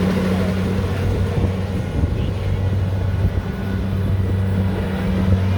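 Rice combine harvester's engine running with a steady low hum. The even hum turns rougher for a few seconds in the middle, then returns.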